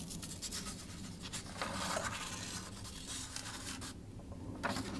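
Printed paper sheets rustling as they are handled and a page is lifted and turned, loudest about two seconds in and again briefly near the end, over a steady low hum.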